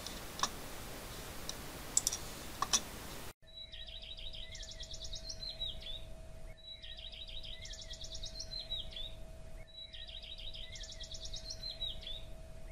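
A few mouse clicks over faint room hiss. Then a sudden switch to a recorded songbird phrase of rapid high trills that rise and then fall. The identical phrase plays three times in a row as a loop over a faint steady tone.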